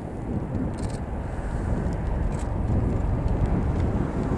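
CV-22 Osprey tiltrotor flying with its nacelles tilted up, the proprotors and engines making a low, heavy rumble that grows steadily louder as it comes closer.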